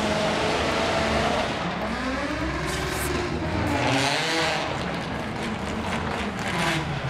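Car engine running with its pitch rising and falling a few times, as when it is revved or pulls away.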